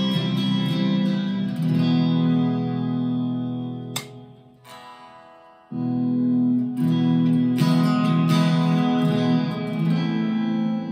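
Epiphone Les Paul Modern Figured electric guitar played through an amplifier: chords struck and left ringing. About four seconds in the strings are cut off with a click, and after a short gap a new chord comes in and the playing carries on.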